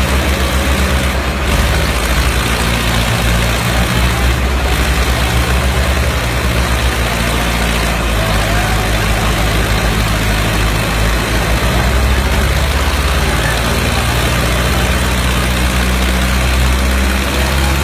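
Tractor diesel engine running steadily and loudly, its low engine note shifting slightly in pitch, with a dense hiss over it.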